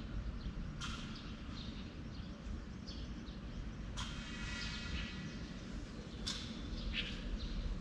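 Birds chirping, a few short calls that fall in pitch, over a steady low rumble.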